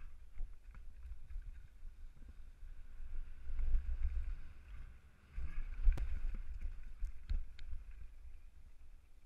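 An all-mountain bike riding down a dry dirt trail, with wind rumbling on the microphone and the hiss of tyres rolling over dirt and gravel. A few sharp clicks and knocks come from the bike rattling over the bumps, the loudest about six seconds in.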